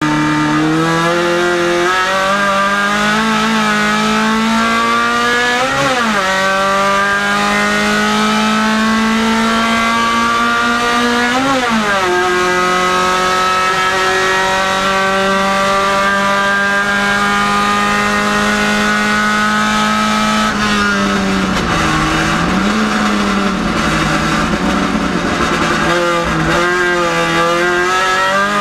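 Race car engine heard from inside the cockpit under hard acceleration: the revs climb and break sharply at two upshifts, about six and twelve seconds in, then hold high and steady flat out. About twenty seconds in the revs fall and waver through braking and downshifts with tyre noise, then climb again near the end.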